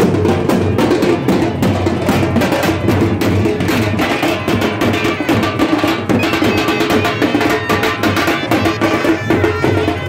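Loud festival procession music dominated by fast, dense drumming.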